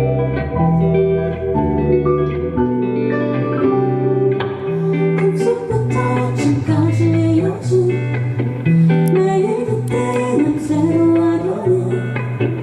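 Indie rock band playing live: guitar-led music over a steady low bass line, with sharp percussive hits joining about five seconds in.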